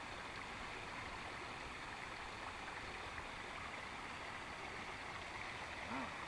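Newly started garden-pond waterfall, water spilling over a series of rock ledges into the pond as a faint, steady rush. A brief short hum sounds near the end.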